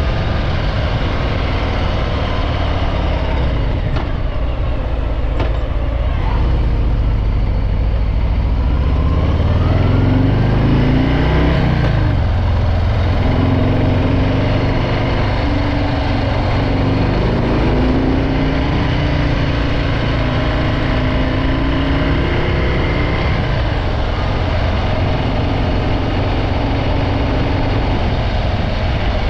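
Harley-Davidson Breakout 114's Milwaukee-Eight 114 V-twin with its stock exhaust, under way: the revs climb for several seconds, drop sharply about twelve seconds in, then hold fairly steady at a cruise.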